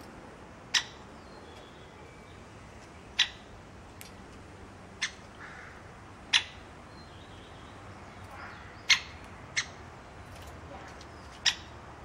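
Great spotted woodpecker giving sharp single "kik" calls, about seven spaced one to three seconds apart.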